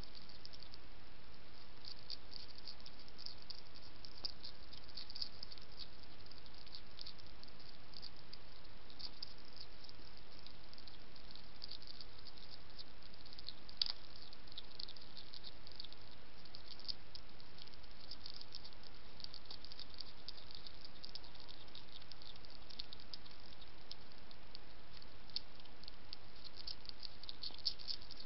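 European hedgehog chewing dry kitten biscuits, a rapid irregular crunching crackle over a steady hiss, with one sharper click about halfway through.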